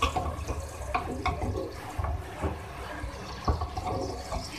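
A spoon clicks and scrapes against a metal cooking pot as ginger-garlic paste is dropped onto raw chicken. Under it runs a steady, watery hiss of food cooking in oil.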